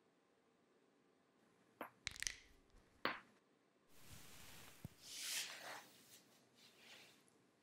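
Quiet sounds of a barefoot person moving about: a few light taps and clicks about two to three seconds in, then a few seconds of soft rustling and rubbing that swells and fades.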